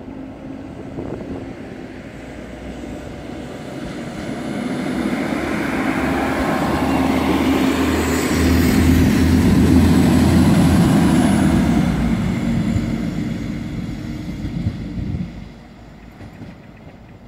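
PESA SA134 articulated diesel multiple unit passing close by: engine hum and wheel noise build as it approaches, are loudest about eight to twelve seconds in, then fall away as it moves off, dropping sharply near the end.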